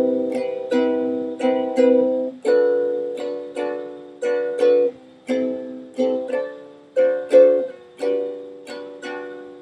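Ukulele strummed chord by chord in a steady repeating down-up-up-down pattern, each strum ringing and fading, with the chord changing every few strums.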